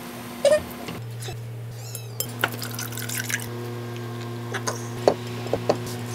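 Coffee poured from a small glass pitcher into a tall glass of soy milk, with a few light glass clinks, over a steady low hum.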